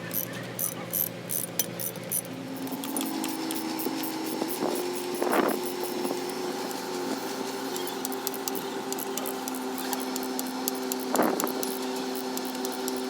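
Workshop machine humming steadily once it starts about two seconds in, with metal parts and tools clinking and ticking throughout.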